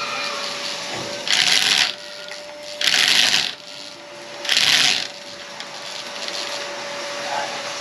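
Corded electric drill running with a steady whine as its bit is pushed into the ceiling through a metal mounting bracket, biting in three short, louder grinding bursts of about half a second each.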